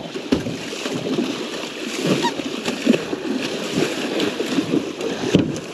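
Water splashing irregularly as a large Pacific halibut thrashes at the surface alongside the boat while it is brought to the net.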